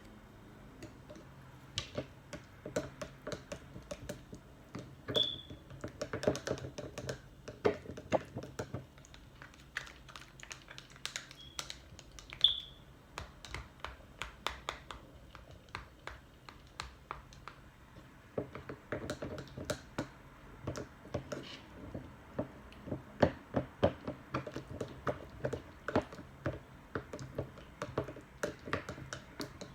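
Plastic spatula stirring a thick shea-butter-and-oil hair custard in a small jar: a run of quick, irregular clicks and taps against the jar, with a couple of short high squeaks.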